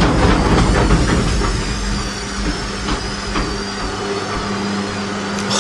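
Whirlpool washing machine running, with rapid knocking over a heavy low rumble for the first couple of seconds. This eases into a steady motor hum with a faint wavering whine.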